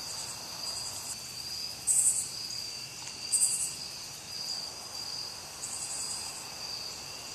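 Insects calling: a steady high trill throughout, broken a few times by short, loud, pulsing buzzes, the loudest about 2 and 3½ seconds in.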